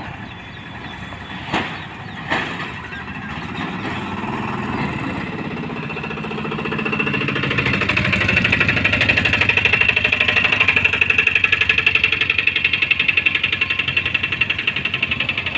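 Pinakini Express passing, growing louder from about six seconds in, then a rapid, even clatter to the end. Two sharp knocks come in the first few seconds.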